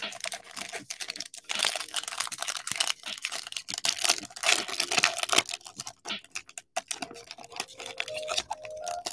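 Baseball trading cards being flipped through by hand: a rapid, irregular run of light clicks and slides as the cards are moved one behind another in the stack.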